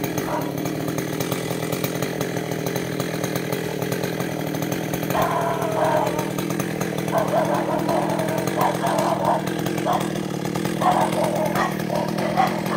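Chainsaw idling steadily, hanging from a climber's harness.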